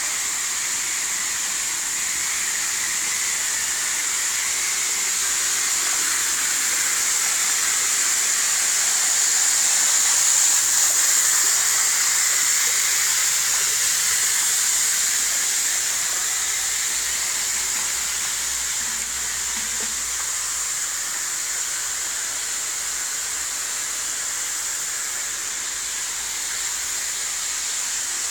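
Water gushing from a pipe outlet and splashing into water pooled across the floor, as the floor is being flooded for a leak test: a steady rushing hiss that grows a little louder around the middle.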